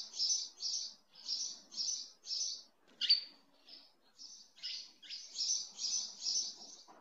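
A bird chirping: a quick series of short high chirps, about three a second, broken about three seconds in by a loud, sharp downward-sliding note and two more falling notes before the chirping resumes.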